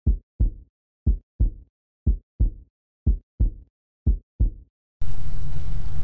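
Heartbeat sound effect: five double thumps, lub-dub, about one a second, with dead silence between them. About five seconds in it cuts suddenly to the steady low rumble of a car driving.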